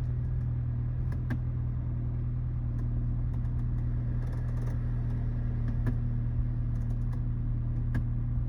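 BMW N20 2.0-litre turbocharged four-cylinder engine idling steadily, with a few light clicks scattered through; it has just been started after its spark plugs and ignition coils were swapped between cylinders to chase a misfire.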